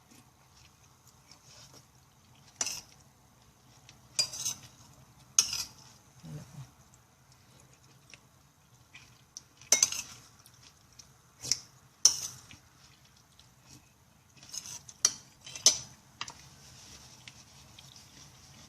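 Cutlery clinking and scraping against a plate of curry while eating, in about eight sharp, irregular knocks.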